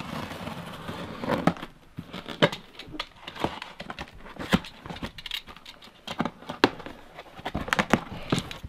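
Utility knife slitting the packing tape along the seam of a cardboard box, then the cardboard flaps being pulled open. Scattered knocks and rustles of cardboard.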